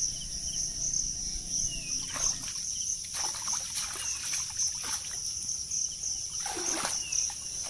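Shallow muddy water splashing and sloshing in a few separate bursts as a person wades and works his hands in it, over a steady high-pitched insect chorus.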